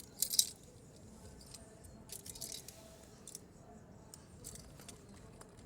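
Small tools and a nylon pouch being handled: short clicks and rustles, the sharpest just after the start and another cluster about two seconds in.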